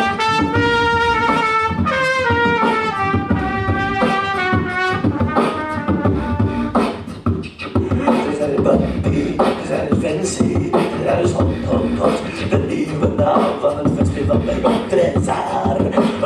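Vocal beatboxing into a microphone, with a trumpet playing a stepping melody over the beat for the first several seconds. After a brief dip in the sound, the trumpet is gone and a second beatboxer on another microphone joins the first.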